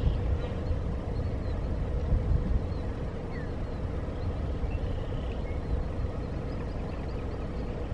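Low, steady rumble with a faint constant hum, and a few faint, short high chirps scattered through it.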